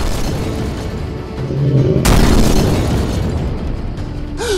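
Action-film background music with a sound-effect explosion about two seconds in: a sudden loud boom that fades away slowly.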